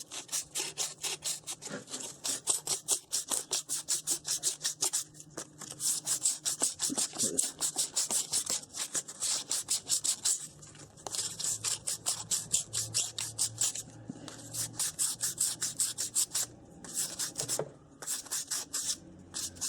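600-grit wet and dry abrasive paper rubbed back and forth over a starter motor's rotor commutator, fast even strokes of about four or five a second with a few short pauses, cleaning up the commutator.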